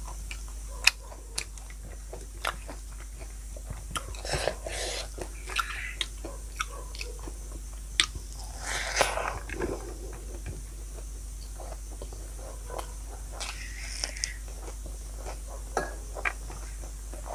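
A person chewing and crunching food close to the microphone, with many sharp mouth clicks scattered through.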